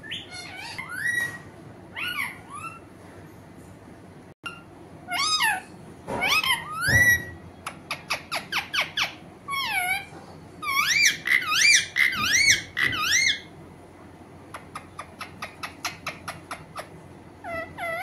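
Alexandrine parakeet calling: squeaky chirps that glide up and down, quick runs of short ticking notes, and a run of wavy rising-and-falling whistles in the middle, with short pauses between the groups.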